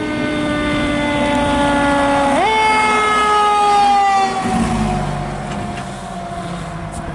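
Fire engine sounding its warning devices as it passes close by: a steady multi-tone horn blast that jumps up in pitch about two seconds in and then slides slowly down as the truck goes by. Its engine is heard running as it pulls away.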